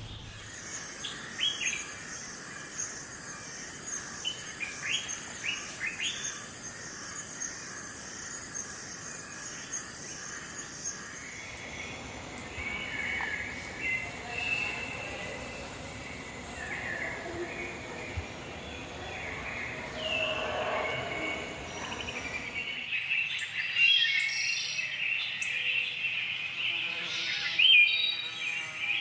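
Forest birds calling and chirping, with many short high chirps that grow denser and louder over the last several seconds. A steady high-pitched pulsing runs underneath for the first third, and the background changes abruptly twice.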